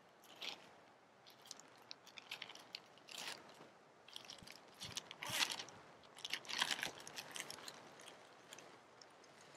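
A plastic bag crinkling in irregular bursts as it is handled, loudest about five to seven seconds in.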